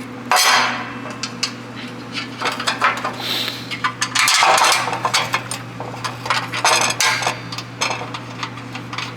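Steel bolts, nuts and a metal bumper bracket clinking and knocking together as bolts are fitted through the bracket by hand: a string of short, irregular metallic clicks and scrapes.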